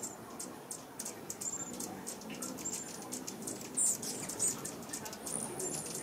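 Hummingbirds calling: a string of very high, thin chip notes and short squeaks in quick, irregular succession, with one louder squeak a little before four seconds in.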